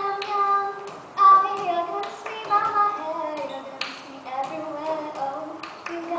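A girl singing a melody while beating out the cup-game rhythm with her hands and a cup: sharp claps and knocks of the cup on a table, the loudest a little over a second in.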